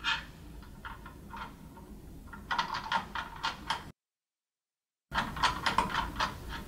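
Screwdriver loosening the module retaining screws on a System Amplifier III's RF module: a run of rapid metallic clicks and ticks. The clicks break off for about a second of dead silence around the middle.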